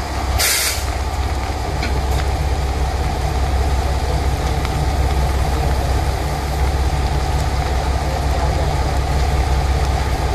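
Diesel railcar idling at a station platform, a steady low engine hum, with a short hiss of released air about half a second in.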